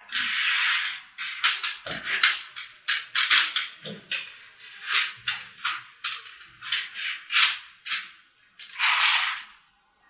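Small magnetic balls clicking and rattling as chains of them are snapped together, pulled apart and slid across a hard tabletop: irregular sharp clicks, with longer rattling bursts at the start and about nine seconds in.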